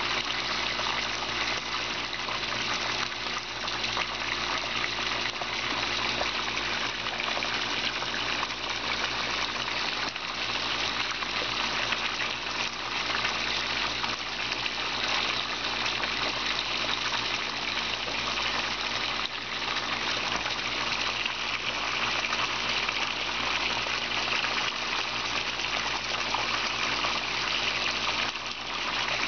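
Two streams of water pouring from PVC pipe outlets into a pond tank, splashing steadily into the surface, with a steady low hum underneath.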